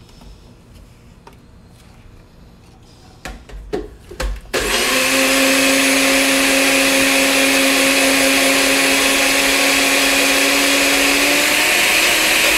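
Personal bullet-style blender whipping cream and horseradish into whipped cream: a few clicks and knocks as the cup is fitted onto the base, then about four and a half seconds in the motor starts with a loud steady whine, its pitch rising slightly near the end.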